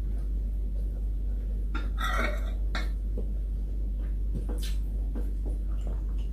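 Metal spoon clinking and scraping against ceramic plates a few times, the loudest clink ringing briefly about two seconds in, over a steady low hum.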